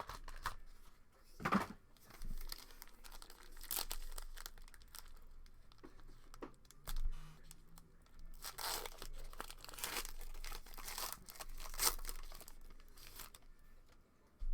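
Packaging of a sports-card hobby box being torn open by hand, with plastic wrapper crinkling in irregular bursts, the busiest stretch in the second half.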